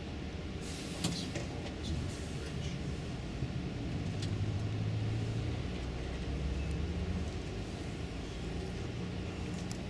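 Road and engine noise heard inside a moving car: a steady low rumble that swells for a few seconds midway, with a few light clicks early on.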